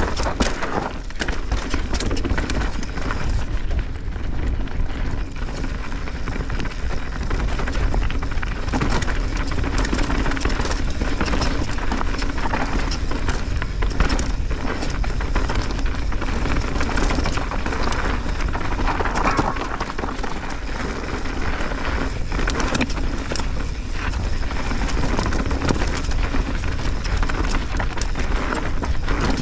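Mountain bike descending a dirt singletrack at speed: tyres rolling over the dirt, with many short knocks and rattles from the bike over bumps. Wind buffets the camera microphone throughout as a steady low rumble.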